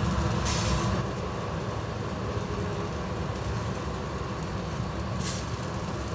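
A steady low rumble, with two brief soft rustles: one about half a second in and one near the end.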